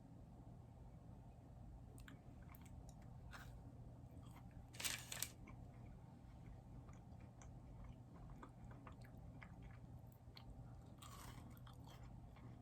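A person quietly chewing a soft, chewy cookie, with small wet mouth clicks throughout. A short louder noisy burst comes about five seconds in, and a weaker one near the end.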